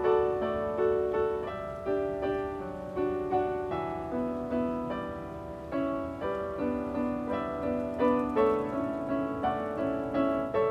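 Background piano music: a slow melody of single struck notes, about two a second, each ringing and fading.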